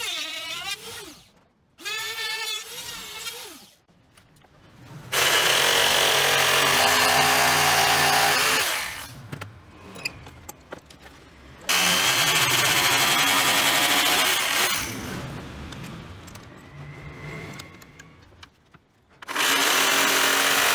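A trim router whines in two short runs near the start, its pitch wavering. Then a jigsaw cuts through a wooden board in three long, loud bursts with pauses between them.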